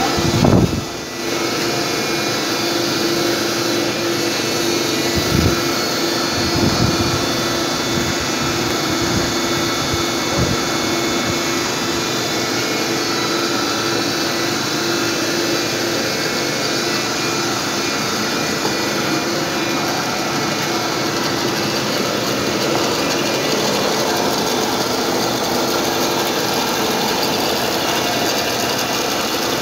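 Automatic film-lamination machine running: a steady mechanical hum with a constant whine over it, and a few short knocks in the first ten seconds or so.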